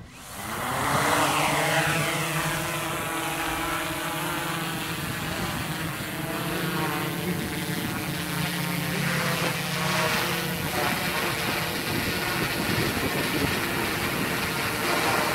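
DJI Inspire 1 quadcopter's four motors and propellers starting up, the sound swelling over about a second, then a steady multi-tone propeller buzz as the drone lifts off and flies.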